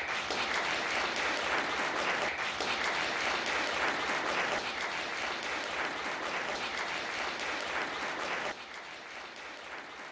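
Audience applauding with steady clapping, which drops to a quieter level about eight and a half seconds in.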